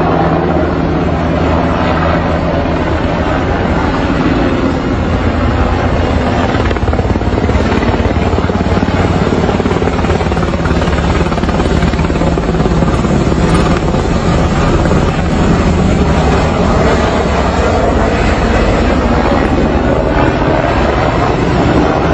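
Helicopter running: a loud, steady noise of engine and rotors.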